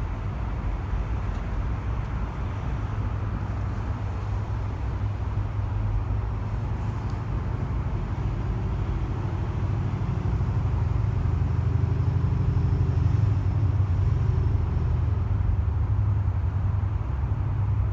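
Steady roar of dense multi-lane expressway traffic, the low rumble of car engines and tyres on the road. It grows a little louder past the halfway point as vehicles pass closer.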